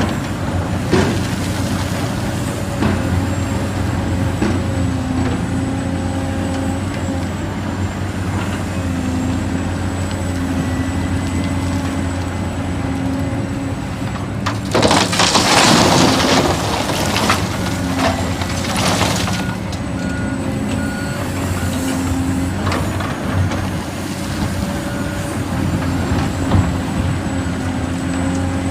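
Heavy diesel truck engine running steadily, with a loud air-brake hiss about halfway through and a shorter hiss a few seconds later. Faint intermittent beeping sounds over it.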